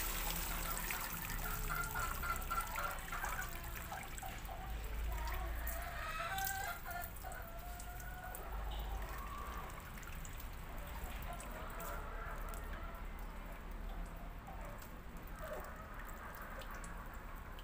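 Water dripping and trickling off a wet gamecock into a bucket of soapy water as the bird is bathed and handled, with small splashes from the hands in the water.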